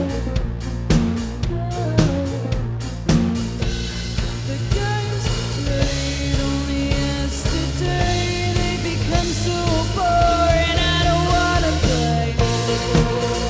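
Rock band playing live: a drum kit keeping a steady beat under held bass notes, with a melodic lead line wavering above.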